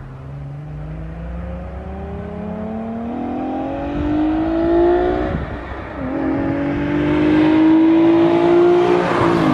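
Nissan 370Z Nismo's VQ37 V6, running with its exhaust off, accelerating hard toward the listener and getting louder. The engine note climbs, drops at an upshift about five and a half seconds in, then climbs again. The tone is deep.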